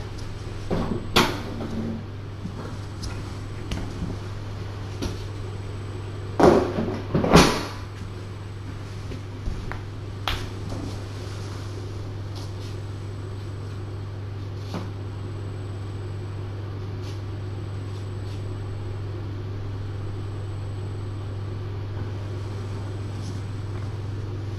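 A steady low hum with scattered knocks and clunks: one about a second in, two louder ones about six and seven seconds in, and a smaller one around ten seconds.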